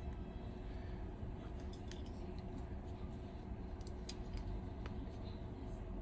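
Faint, scattered light clicks and ticks of small metal repair tools, a precision screwdriver and tweezers, handling tiny screws on an iPhone's frame, over a steady low hum.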